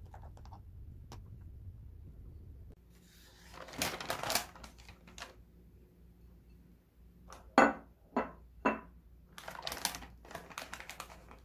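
Rustling of a paper bag, then a ceramic plate set down on a table with three sharp clinks, the first the loudest, then more rustling.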